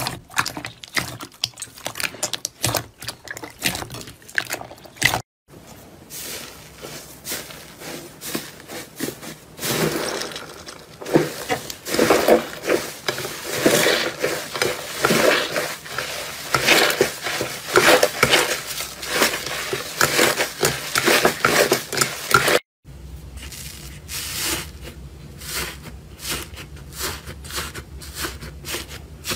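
Slime being squeezed and worked by hand, making dense crackling, clicking and squelching sounds. It comes in three separate takes, each broken off by a sudden cut, about five seconds in and again near the end; the middle take is the loudest.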